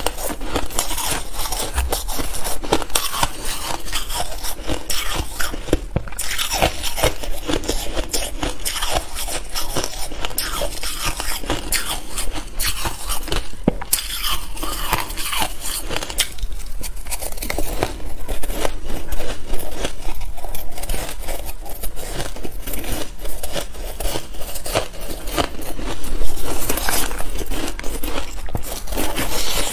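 Shaved ice crunching as it is chewed, close to the microphone, mixed with a metal spoon scraping and scooping through shaved ice in a plastic bowl. It is a continuous stream of small crackling crunches with no pause.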